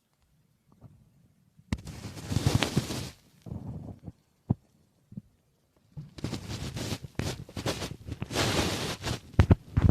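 Human stomach growling and gurgling in irregular bursts, mixed with rustling noise and a few sharp clicks. The first second and a half is nearly quiet, then it comes in two bouts, the second longer and building toward the end.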